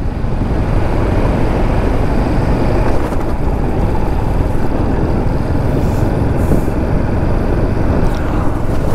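A motorcycle being ridden at a steady road speed: wind buffets the helmet-mounted microphone over the running of the engine and tyres.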